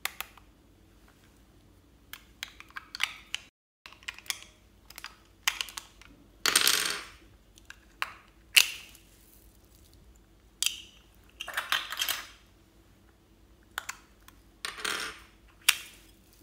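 Small plastic lollipop-shaped cases being handled and snapped open, giving sharp plastic clicks and short rattling bursts as tiny sprinkles are shaken out of them.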